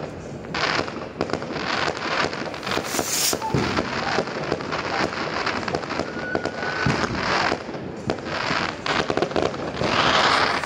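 Many fireworks going off at once: a dense, continuous run of bangs and pops, with several louder hissing, crackling bursts spread through.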